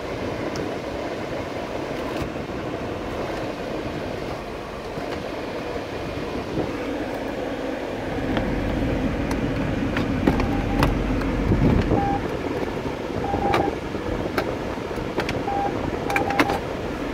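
Steady rushing of a 2017 Chevrolet Spark's climate-control blower fan in the cabin. In the second half come scattered clicks of switches and buttons being pressed, and a few short beeps.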